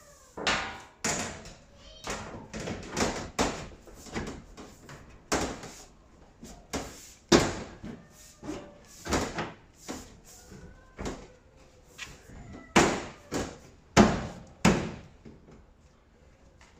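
An irregular series of knocks and bangs from tumble dryer panels and parts being handled and fitted together. The loudest knock comes about seven seconds in, and three loud ones come close together near the end.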